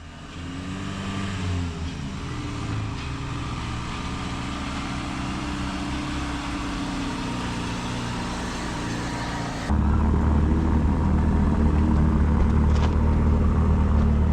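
Motor vehicle engine running, its pitch rising and falling. About ten seconds in it cuts abruptly to a louder, steadier engine drone.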